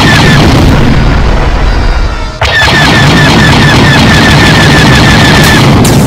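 Sci-fi space-battle sound effects: a loud, continuous starfighter engine rumble with rapid repeated laser-cannon blasts, about six shots a second, starting about two and a half seconds in and running to near the end.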